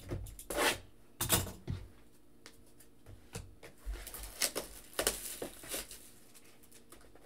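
Cardboard trading-card box handled by hand on a table: a scattered series of short taps and rustles, about one every second or less.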